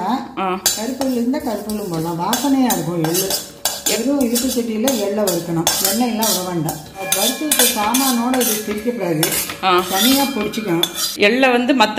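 Metal spatula stirring and scraping sesame seeds around a dry kadai, a quick run of scrapes and clicks as the seeds are dry-roasted without oil. A pitched sound that keeps rising and falling runs under it.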